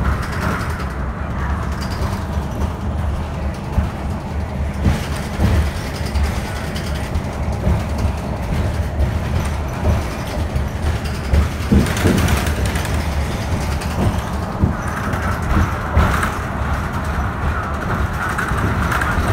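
A 2019 New Flyer XD60 articulated diesel bus under way, heard from inside: a steady low engine and road rumble, with a few sharp knocks and rattles from the body over the road.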